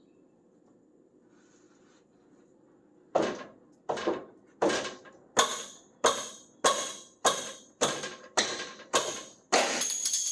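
Hammer blows on metal: about eleven sharp, evenly spaced strikes, roughly one and a half a second, each with a short ring, starting about three seconds in, the last one drawn out. They are struck at a stuck, rusty fender bolt.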